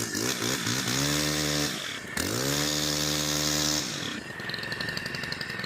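STIHL FS 131 R brushcutter's 4-MIX engine pull-started with the choke on after priming. It fires and runs twice, each time climbing quickly to a steady note for about a second before dying away.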